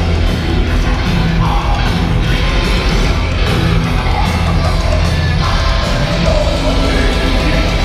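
Black metal band playing live over the PA: loud, dense distorted guitars and drums with yelled vocals.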